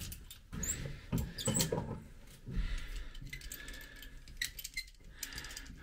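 Hand work on a plastic thru-hull fitting: scattered light clicks, taps and scrapes of tools against the fitting, with a few sharper knocks in the first half.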